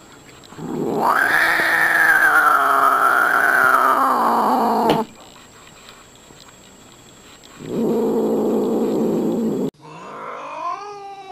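White Scottish Fold cat yowling: one long drawn-out call of about four seconds that rises and then wavers. After a pause comes a rougher, noisier sound of about two seconds. Near the end there are a few short rising calls.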